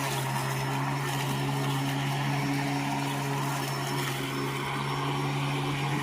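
Litheli battery-powered electric lawnmower running steadily while mowing tall weeds: a constant motor-and-blade hum with a whirring rush over it.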